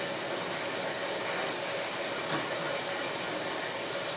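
Steady hiss of background room noise, with a few faint light ticks as the balsa wingtip is handled against the film-covered stabilizer.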